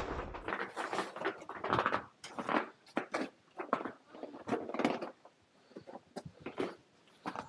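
Footsteps crunching on ice and snow, an uneven run of short steps.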